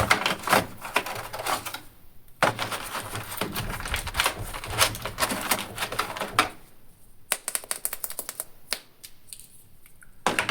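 Rapid clicking and crackling of plastic toy packaging being handled. It comes in two long dense stretches, then a sparser run of sharp clicks about seven seconds in.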